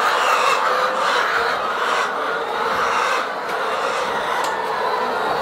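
A large flock of laying hens in a coop, a continuous dense din of clucking and squawking from many birds at once.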